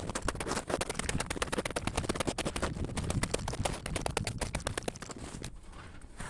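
Boots kicking and scuffing dry, frozen snow aside: a fast run of crunches that stops about five and a half seconds in.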